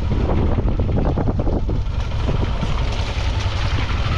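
Steady low rumble of a vehicle on the move, heard from on board, with frequent small knocks and rattles.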